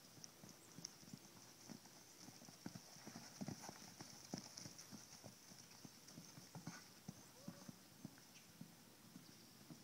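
Faint, irregular hoofbeats of a horse moving about, a string of dull thuds on the ground at an uneven pace.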